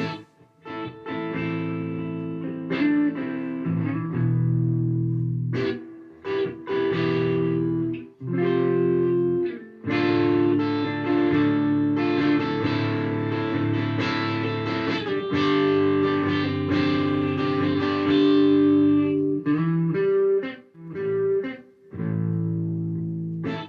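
Gibson Les Paul Studio electric guitar playing a looped chord phrase through an overdriven amp tone: short chord stabs broken by brief stops, then held chords ringing through the middle, with the phrase starting over near the end.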